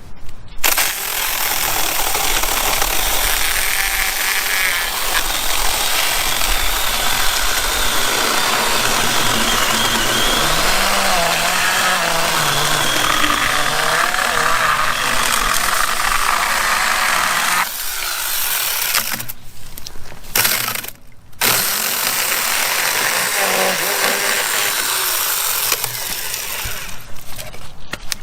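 Compact chainsaw running and cutting through a log, with the motor's pitch wavering as it loads in the wood. It stops briefly twice about two-thirds of the way through, then cuts again.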